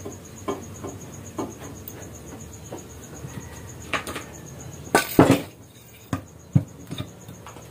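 Scattered light knocks and clatter of kitchen things being handled on a counter, loudest in a short cluster about five seconds in, with a fast, evenly pulsing high chirp behind.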